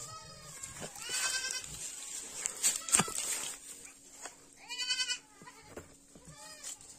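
Goats bleating, four short quavering calls, the one about five seconds in the loudest. A sharp knock about three seconds in.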